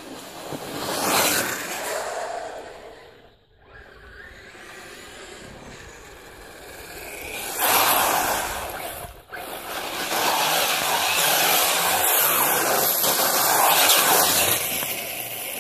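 HPI Trophy Flux 1/8-scale electric buggy on 4S, its brushless motor and tyres running hard over gritty tarmac, with grit thrown up by the wheels. It comes close about a second in, again suddenly at about eight seconds, and is loudest from about ten seconds to near the end.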